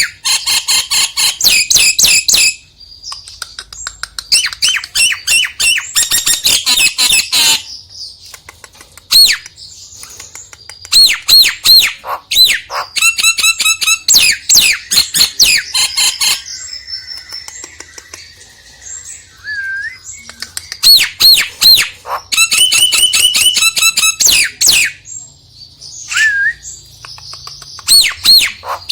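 Nias hill myna calling in loud bursts of rapidly repeated notes and clear whistles, with short quieter gaps between the bursts.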